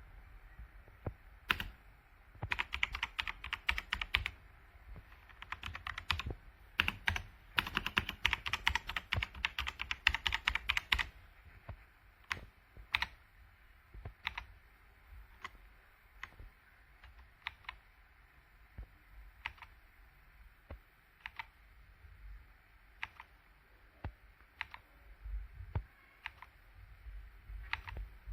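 Typing on a KOORUI full-size mechanical gaming keyboard fitted with upgraded tactile switches: a fast flurry of keystrokes for several seconds, then slower single key presses about one a second.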